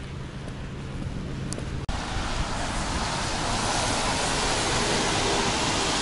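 Road traffic on a rain-wet street: a steady rushing hiss of tyres on the wet road that comes in suddenly about two seconds in and grows louder, taking over from a low steady hum.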